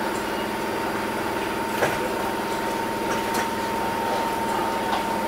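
Stationary Enoden 500-series electric train idling at a platform: a steady hum of onboard equipment with a thin constant tone. A few short clicks come through, the loudest a little under two seconds in.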